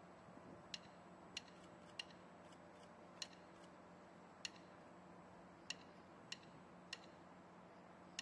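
Sharp single ticks over near silence, falling on a steady slow beat about 0.6 s apart with some beats left out. They are a drum tap keeping a slow funeral cadence.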